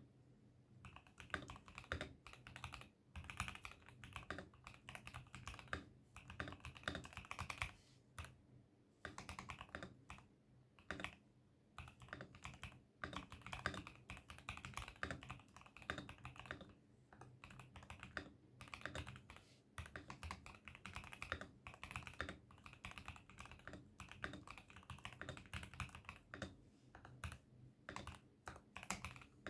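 Continuous typing on an ASUS ROG Azoth wireless mechanical keyboard: rapid, irregular key clicks and clacks in bursts, with brief pauses between runs.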